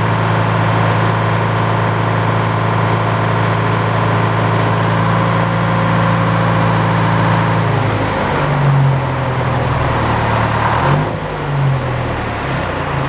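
Engine driving an old Frick circular sawmill, running steadily. About eight seconds in its note turns uneven and wavers as the load changes, and there is a clunk a few seconds later.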